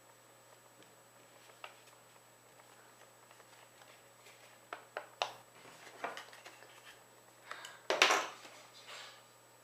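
Sheet of paper being handled, folded and pressed by hand: scattered crackles and sharp clicks from about halfway, then a louder rustle near the end as the folded paper model is lifted.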